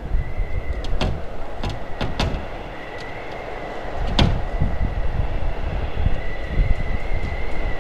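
A steady low rumble with scattered sharp clicks and knocks, the loudest about four seconds in, and a faint high whine that comes and goes.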